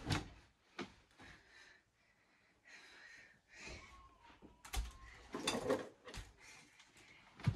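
A string of knocks and clatters with rustling in between, as things are handled and moved about a room. The loudest knocks come at the start and again around five to six seconds in.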